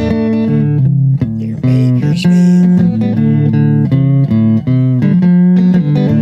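Guitar and bass music: an instrumental passage of steady, stepping notes with no singing.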